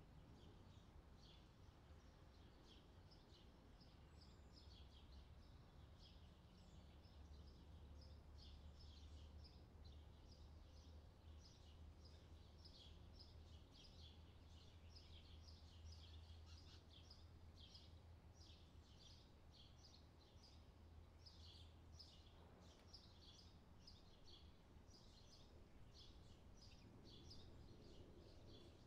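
Near silence: faint, rapid high-pitched chirping over a low hum.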